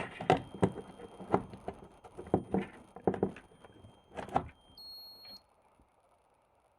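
LiitoKala Lii-500S battery charger whistling with a thin, steady, high-pitched tone, amid several sharp clicks and knocks of handling. The whistle comes while the charger's power supply is unplugged and batteries are still inserted. About four and a half seconds in, the whistle stops and a short, higher beep sounds, as power is reconnected.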